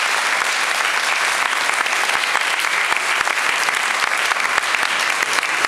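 Audience applauding steadily: a dense, even clatter of many hands clapping at the end of a speech.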